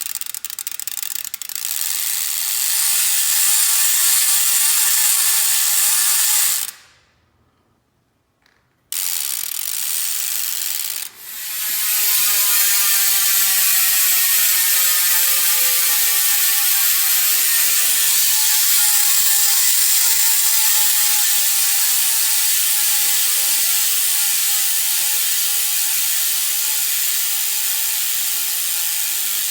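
Profile Elite rear hub's ratchet buzzing loudly as the wheel freewheels. The fast, even buzz cuts off about seven seconds in and starts again twice. Then it slowly drops in pitch as the wheel spins down.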